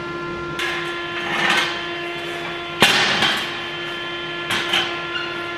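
Steel square tubing being handled and knocked into place on a window frame on a concrete floor: scraping and knocking, with one sharp metallic clank nearly three seconds in, over a steady background tone.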